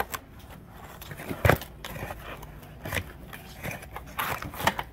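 Vinyl LP sleeves being handled in a cardboard shipping box: a string of light knocks and scrapes as records are slid and lifted against the cardboard, the loudest knock about a second and a half in.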